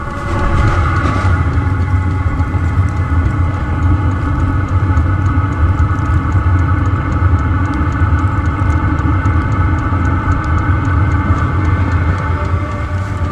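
Diesel air heater running steadily, its combustion and blower making a constant hum, with faint regular ticks throughout.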